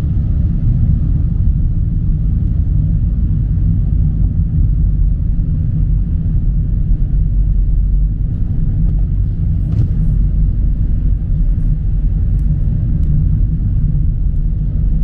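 Steady low rumble of a car's road and engine noise heard from inside the cabin while driving on a rainy highway. A few faint ticks, likely raindrops hitting the car, come in the second half.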